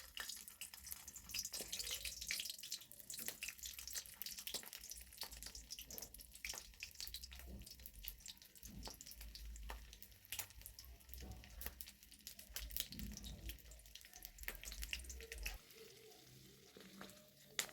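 Food frying in a pan, a faint sizzle with many sharp, irregular crackles and pops. A low hum underneath stops near the end.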